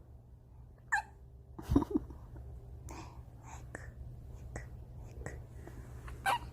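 Newborn baby hiccuping: a run of short, sharp hics about once a second, each with a tiny squeak. The loudest come about two seconds in and near the end.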